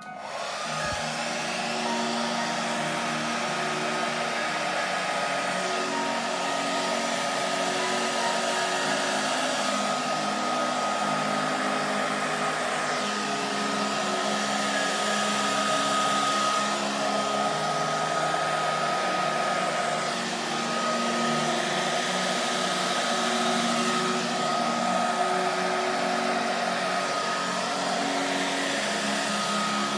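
Handheld hair dryer switched on suddenly and blowing steadily, a rushing of air with a thin high whine over it, used to blow wet acrylic pour paint across a canvas.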